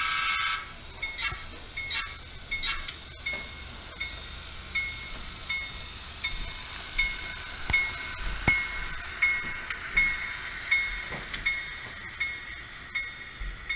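HO scale model railroad sound: a short horn-like blast at the start, then a bell ringing steadily about once every three-quarters of a second. Under it, the running noise of a model train swells and fades as it passes.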